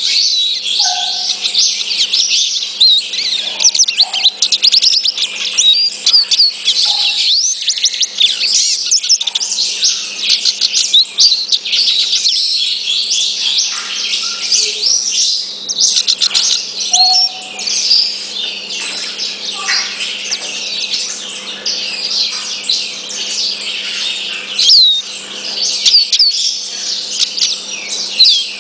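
Male lesser goldfinch (black-backed form) singing a long, rapid, twittering song of high notes, with only brief pauses.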